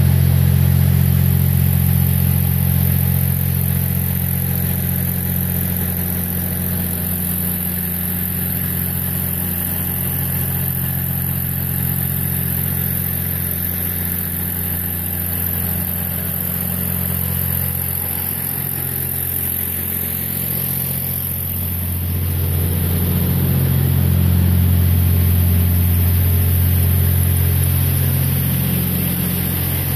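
Truck engine running as the truck drives, heard from inside the cab as a steady low drone that grows louder for a few seconds about two-thirds of the way through. A steady high hiss sits over it.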